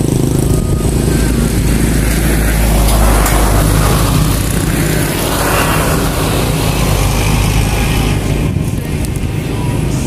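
Low engine rumble of a motor vehicle, swelling and fading as it passes about halfway through.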